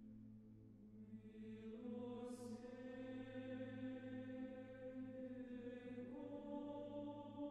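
Slow, sustained choral music: long held vocal chords over a steady low drone, the chord shifting up about two seconds in and again about six seconds in, with a soft airy swell near the start.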